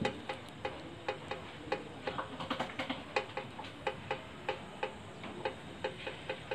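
Regular ticking, about three ticks a second, going on steadily.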